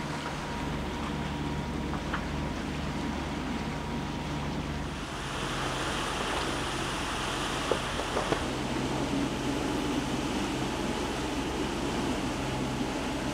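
Boat under way at sea: a steady rush of water along the hull over a low, steady hum from the boat. The hiss turns brighter about five seconds in.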